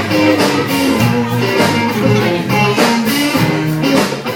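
Live band playing a rock-style number, with guitar over a steady drum beat.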